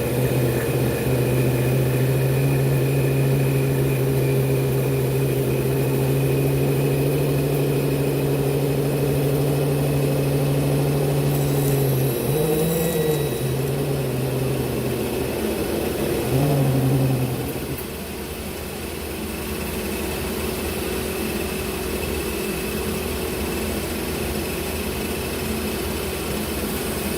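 Table saw running while its blade cuts a wooden blank spinning in a taper lathe jig: a loud steady motor hum whose pitch sags briefly twice as the cut loads it. The hum stops about two-thirds through, and a quieter steady machine noise carries on until it cuts off at the end.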